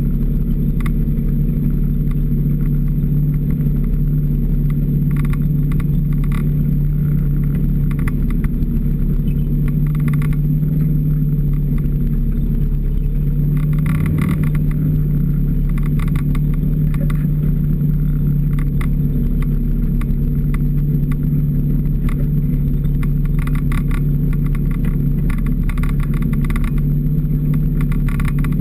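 Snowmobile engine running steadily at trail-riding speed, a constant low drone, with short patches of rattling now and then as the machine rides over the trail.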